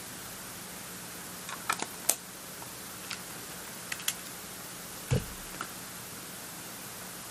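Camera gear being handled on a bench: a scattering of sharp small clicks and one duller knock about five seconds in, over a steady background hiss and faint hum.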